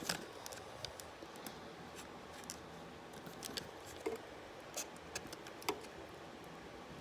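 Faint, scattered clicks and ticks of a hard plastic blister pack being cut open and handled.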